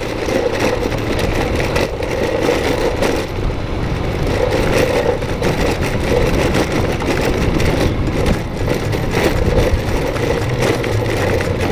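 Vehicle engine running steadily while travelling along a rough road, with a continuous rumble and many small knocks and rattles from the bumpy surface.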